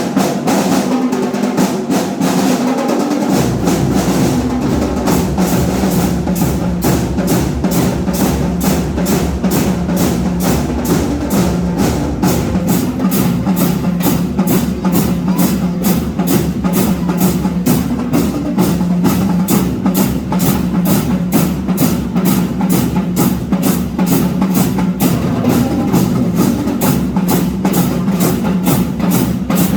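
Marching band playing, led by its drums: a fast, even beat of snare and bass drums over a sustained low tone. The deepest drums come in about three seconds in.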